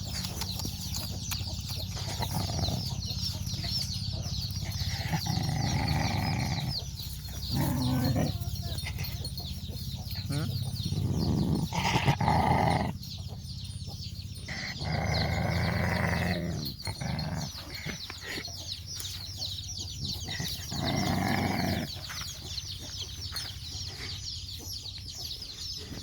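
Chickens clucking now and then over a constant high-pitched chirping, with louder calls several times.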